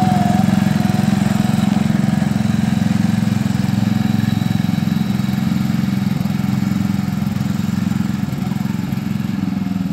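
Riding lawnmower engine running steadily as the mower drives away, growing slowly fainter.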